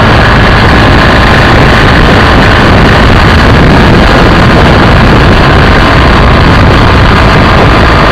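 BMW F800ST motorcycle under way at road speed: a loud, steady rush of wind and road noise with the parallel-twin engine droning beneath it, picked up by a camera mounted low on the bike's fairing.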